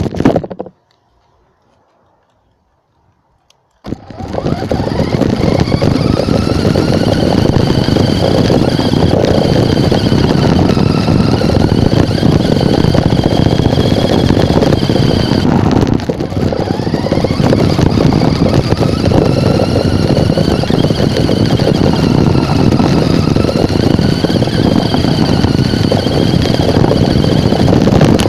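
A radio-controlled car's motor running close to the microphone, its high whine rising and falling as the throttle is worked while the car drives. A short loud noise comes at the very start, then about three seconds of near silence, and the motor sound cuts in suddenly about four seconds in.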